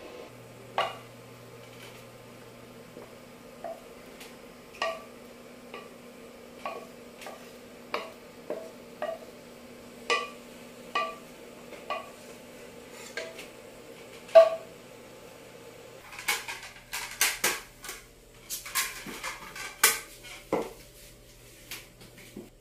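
A metal utensil tapping and scraping against cookware as eggs are scrambled, about one tap a second with a short ring after each, over a faint steady hum. In the last few seconds it turns into a busier clatter of utensils and dishes.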